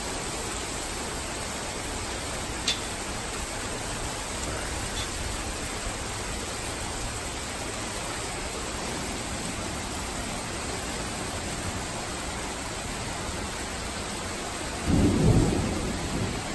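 Heavy rain pouring steadily in a thunderstorm. Near the end comes a short, loud low rumble.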